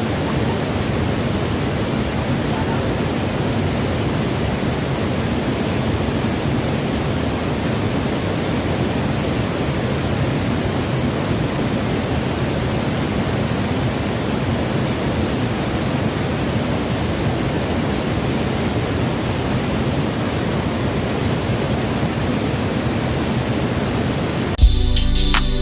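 Waterfall rushing, close and loud: a steady, unbroken noise of falling water. Music with drums and guitar cuts in about a second before the end.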